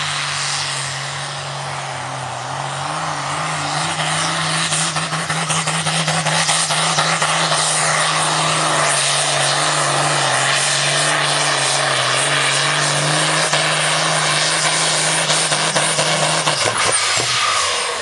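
Old tractor's diesel engine running hard under full load while dragging a tractor-pulling sled. The steady drone grows louder a few seconds in, then drops in pitch and dies away near the end as the pull finishes.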